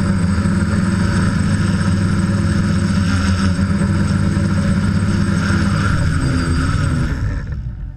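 DJI F550 hexacopter's brushless motors and propellers running in a steady, multi-tone buzz, heard from the camera on its frame. About seven seconds in the motors spin down and the sound fades quickly as the craft sits on the ground after landing.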